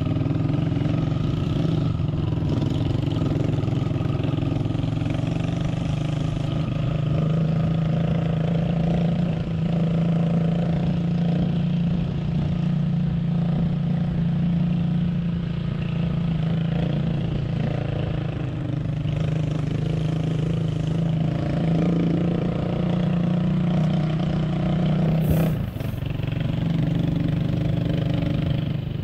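Motorcycle engine running steadily while riding, heard from on the bike, with a brief dip in the engine note near the end.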